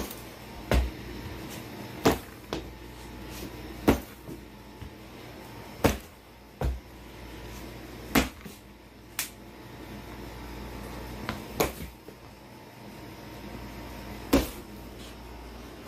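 Irregular sharp knocks and thumps, one every second or two, over a low steady hum.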